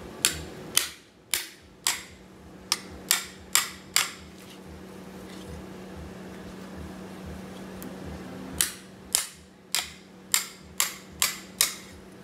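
Claw hammer striking the spine of a steel machete, driving the blade through a permit fish to cut it into steaks: about eight sharp metallic strikes, a pause of about four seconds, then another run of about eight.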